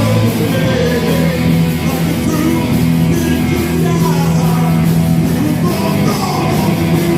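Live rock band playing loud, with distorted guitar, bass and drums, and singing.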